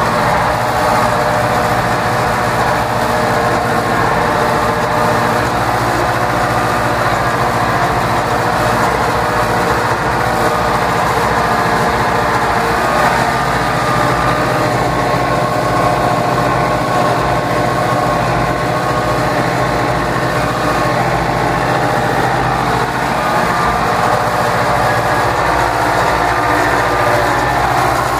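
David Brown 995 tractor's diesel engine running steadily under load as it pulls a three-bottom plow through the soil, heard from inside the cab.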